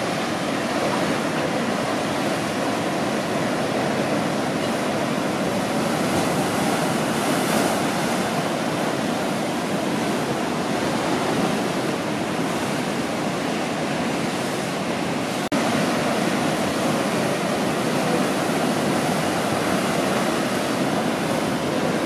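Ocean surf breaking and washing, a steady rush of white water. A split-second gap in the sound comes about two-thirds of the way through.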